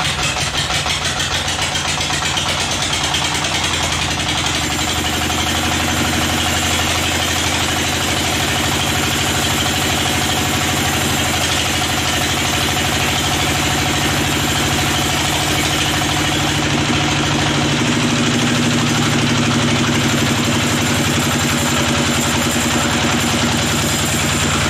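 Band sawmill's vertical band saw cutting lengthwise through a teak log: steady motor hum under the hiss of the blade in the wood.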